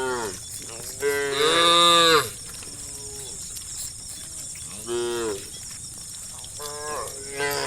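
Cattle mooing repeatedly: four calls, each rising then falling in pitch. The loudest and longest comes about a second in and lasts about a second.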